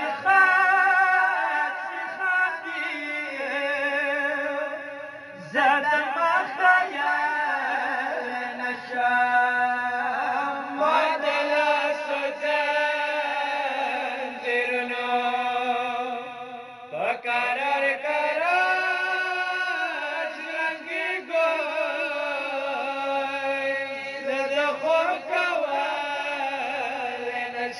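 Male voice chanting a Pashto noha, a Shia lament for Imam Hussain, in long drawn-out, wavering melodic phrases. A fresh phrase starts about five and a half seconds in and another near seventeen seconds.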